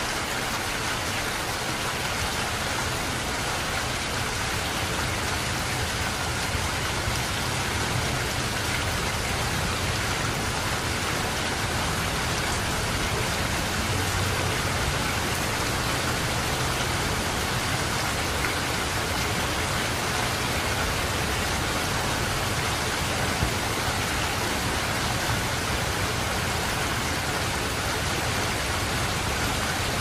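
Steady rain falling, an even hiss of drops that neither builds nor fades.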